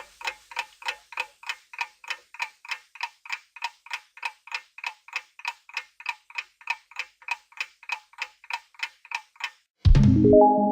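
Countdown timer sound effect: a clock ticking evenly, about three ticks a second. About ten seconds in the ticking stops and a loud low hit with a ringing chime takes over, fading away.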